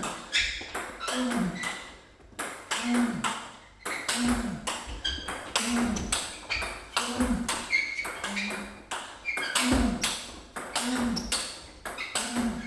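Table tennis rally: the celluloid ball alternately cracks off the rackets and knocks on the table in a quick, steady rhythm of sharp clicks, a stroke about every second or less, from fast topspin drives.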